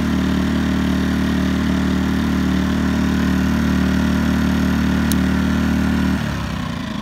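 Champion 2000-watt inverter generator's small four-stroke engine running steadily, then dropping to a lower speed about six seconds in. It runs smoothly on a newly replaced spark control module, which cured the rough running it had when warm.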